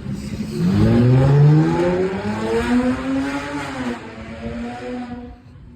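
A loud vehicle engine accelerating. Its pitch climbs steadily for about two seconds, then holds, and the sound dies away about five seconds in.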